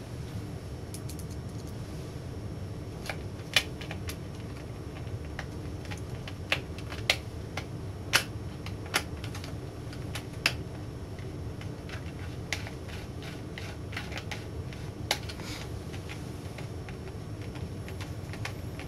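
Scattered small metallic clicks and taps, about eight in all and spaced irregularly, as screws and a screwdriver are handled on the ViewSonic VG730m monitor's metal heat shield. They sound over a steady low background hum.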